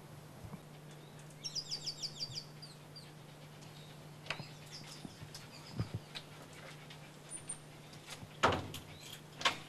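A small bird sings a quick run of about eight high chirps between one and two and a half seconds in, over a faint steady hum. A few scattered clicks and rustles follow, the loudest a thump near the end.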